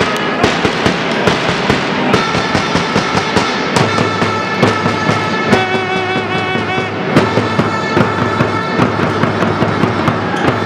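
Loud music laid over the footage: a fast, steady drum beat with held notes above it.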